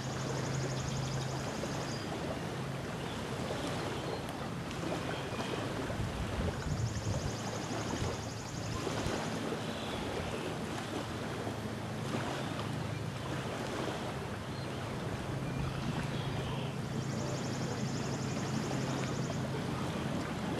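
Small lake waves lapping on a sandy shore, with wind buffeting the microphone. A low hum comes and goes, and a high buzzing trill is heard three times.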